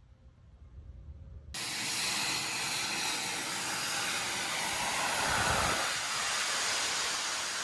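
A steady, loud rushing hiss that starts abruptly about a second and a half in, after a faint low rumble.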